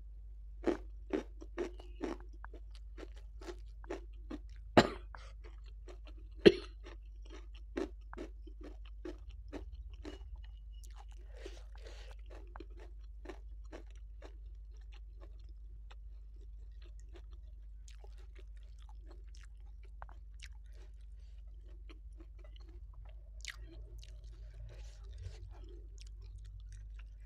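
Close-miked chewing of a mouthful of rice with fried salted fish and raw vegetables: a run of sharp crunches over the first several seconds, the two loudest about 5 and 6.5 seconds in, then softer, quieter chewing.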